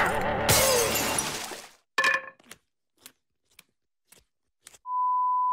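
Cartoon sound effect of a glass pitcher smashed by a baseball bat: a loud crash of breaking glass lasting almost two seconds, then one sharp knock and a few faint clinks of falling pieces. Near the end a steady high beep starts and lasts about a second.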